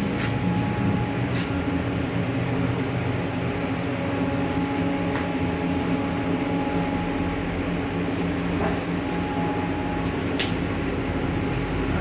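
Glue-coating roll laminating machine running: a steady hum of motor, rollers and fans, with a couple of light clicks, about a second and a half in and near the end. The machine is being set for the thickness of its glue coat.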